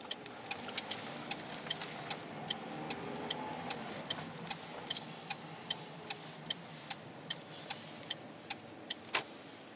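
A car's turn-signal indicator ticking steadily, about two and a half ticks a second, over engine and road noise inside the moving car's cabin. The engine rises briefly a few seconds in, and one louder click comes near the end.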